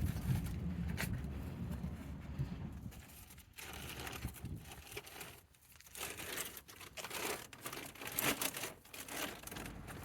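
Irregular rustling and crinkling, like plastic or a bag being handled, after a low rumble in the first few seconds.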